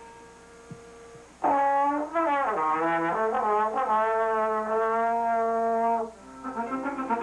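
Trombone playing: a loud entry about a second and a half in that slides down in pitch, then a long held note, breaking off near the end into quicker, shorter notes. Before the trombone comes in, an earlier held note fades away.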